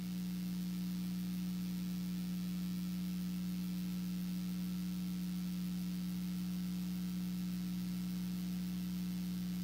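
A steady low electronic tone, like a hum or drone in the broadcast audio, holding one pitch with a fainter higher overtone.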